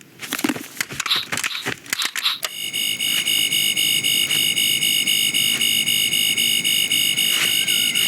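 A quick run of clicks and taps, then about two and a half seconds in a loud, steady, high-pitched electronic buzzing tone starts, like an alarm, with a slight pulse.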